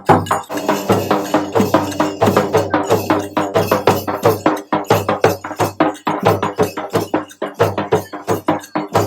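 Music with a fast, steady percussive beat.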